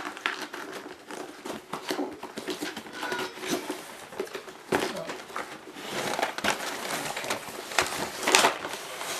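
Packaging crinkling and rustling as the box contents are handled and unpacked, with irregular clicks and knocks.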